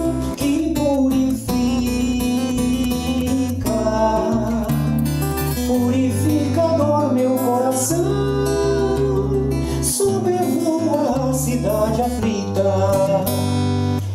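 Acoustic guitar accompanying a man singing a slow song in Portuguese.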